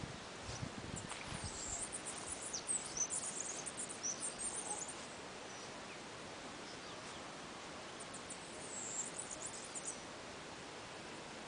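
Outdoor ambience of high-pitched bird chirps, coming in a flurry of short sweeping calls over the first few seconds and again about eight seconds in, over a steady faint hiss. A few low thumps at the very start.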